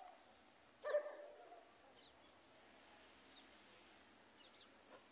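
A dog gives a single short bark about a second in. Faint bird chirps sound in the background.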